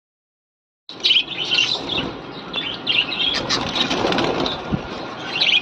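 Many farm-kept birds chirping over one another, beginning about a second in.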